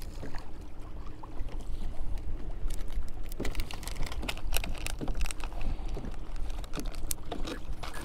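Irregular clicks and knocks on a fishing kayak with a steady low rumble underneath, the clicks coming thicker from about three seconds in.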